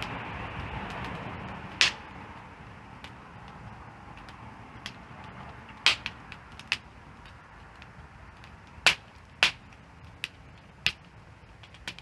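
Wood fire crackling, with sharp irregular pops of burning wood, several of them loud, over a soft steady hiss that fades after about two seconds.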